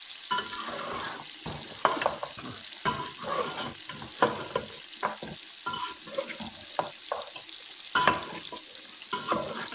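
Mutton pieces sizzling in oil and tomato gravy in a metal pot while a metal ladle stirs them, scraping and clinking against the pot many times over a steady sizzle.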